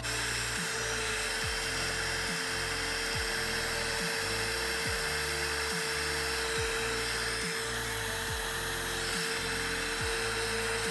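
Heat gun running steadily, a blowing hiss with a steady high whine, as it heats the center of a solder-seal heat-shrink wire connector to melt the solder.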